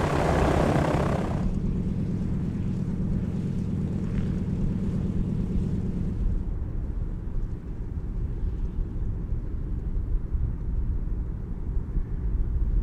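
Lisunov Li-2's nine-cylinder ASh-62IR radial piston engines running as the aircraft taxis. The sound cuts abruptly to a lower, duller engine drone about a second and a half in, and changes again to a deep rumble around six seconds in.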